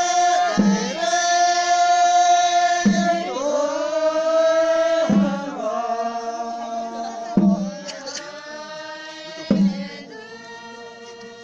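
Music: long, held sung notes over a drum struck about once every two seconds, growing quieter after the middle.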